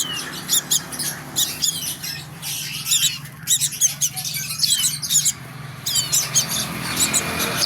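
A small bird calling repeatedly: quick, high chirps and short notes that slide downward, in bursts of a few at a time with brief pauses between them.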